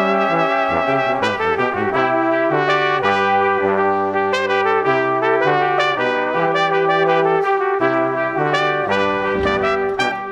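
Background music: brass instruments playing held notes that change every second or so, several notes sounding together.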